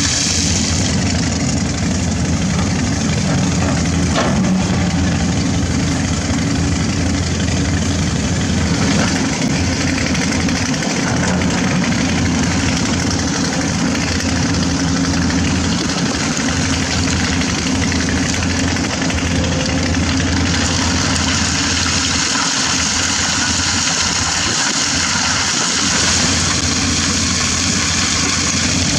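Komatsu PC200 hydraulic excavator's diesel engine running steadily as it digs and loads river sand.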